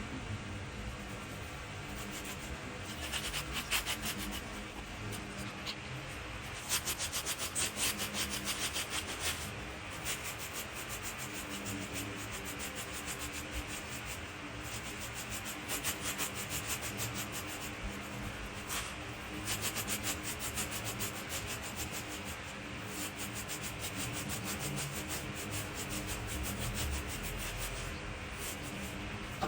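Dry leaves being raked and scraped across the ground in rapid, dense strokes that sound sped up, as in fast-motion footage.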